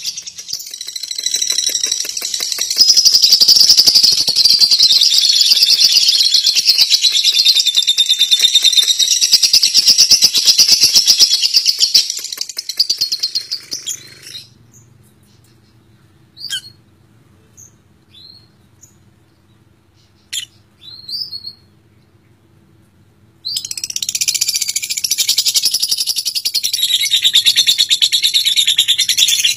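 Lovebird's long, very fast chattering trill, the 'ngekek' that Indonesian lovebird keepers prize. It runs unbroken for about fourteen seconds, then stops for several seconds with only a few single chirps, and starts again near the end.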